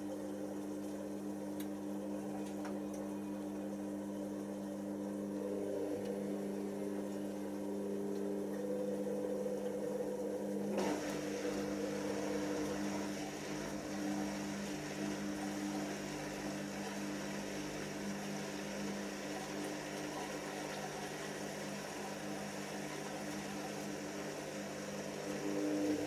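Hoover Nextra HNL6166 front-loading washing machine draining at the end of its prewash: the drain pump runs with a steady hum while the drum tumbles the load. About eleven seconds in, a steady hiss joins the hum.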